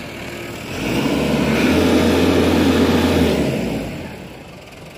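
Snowplow truck passing close by: its engine swells about a second in, holds steady, and fades away toward the end.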